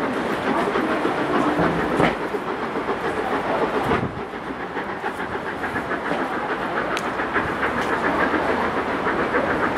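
Steam-hauled train of passenger coaches pulling away, wheels clattering over points and rail joints, with a few sharper knocks.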